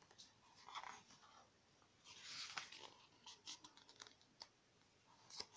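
Faint rustling and light ticks of glossy photobook pages being handled and turned by hand, with a short swell of paper rustle about two seconds in.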